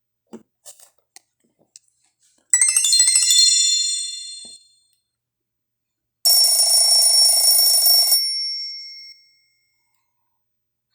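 Nokia 5130 XpressMusic mobile phone playing two short ringtones through its loudspeaker. The first, a few seconds in, is a quick bright ringing trill. The second, just past the middle, is a denser electronic tone with a high whistle. Each lasts about two seconds and fades out.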